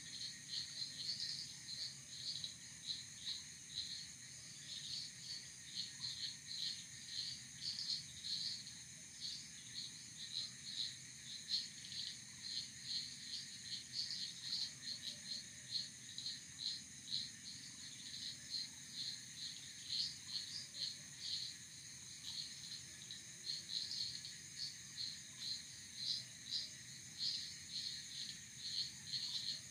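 Night insects: crickets chirping in short repeated pulses, several a second, over a steady high-pitched insect trill.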